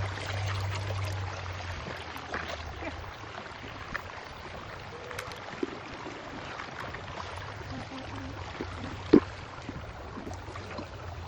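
Water running and pouring as a steady hiss, with scattered small knocks and one sharp knock about nine seconds in.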